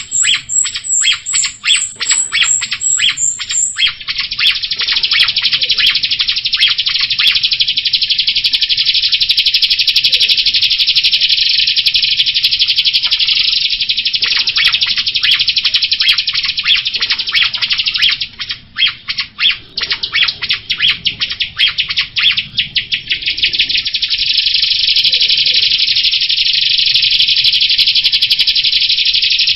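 Jalak rio-rio starling singing a fast, continuous chattering song of rapidly repeated notes. A high, rapid trill rides over it for the first few seconds.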